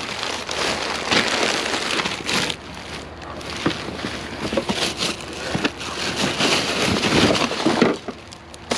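Hands rummaging through a box of discarded cassette tapes and plastic toys, with rustling and many irregular plastic clicks and clatters.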